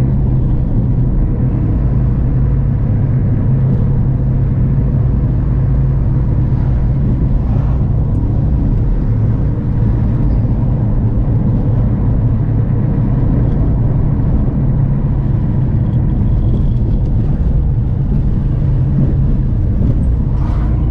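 Car driving along a road: steady engine hum and road noise.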